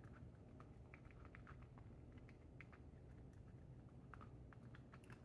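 Domestic cat (British Shorthair munchkin) eating, heard as faint, irregular small clicks of chewing and mouth sounds over a low room hum.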